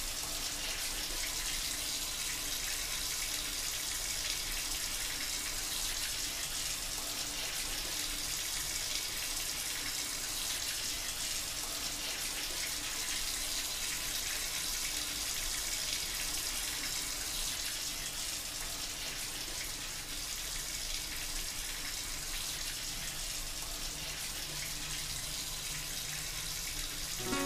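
Water running steadily from a bathroom tap, an unbroken rushing that does not change.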